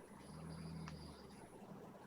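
A person snoring: one low snore lasting about a second.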